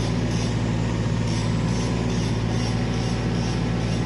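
Kubota RX-203S mini excavator's diesel engine running at a steady speed while the boom and arm are moved on the hydraulics. A faint high-pitched pulsing repeats a few times a second.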